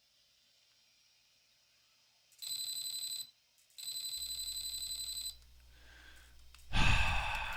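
Two high electronic beeps, about a second each, from the brushless motor and its ESC, the second fluttering rapidly; then a low hum as the motor is powered. Near the end the motor suddenly spins up with a loud burst of noise from the drivetrain.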